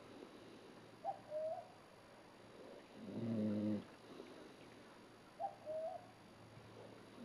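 An animal's snoring mating call: one long, low snore about three seconds in, repeating roughly every four seconds. A short, higher two-part call sounds twice in between.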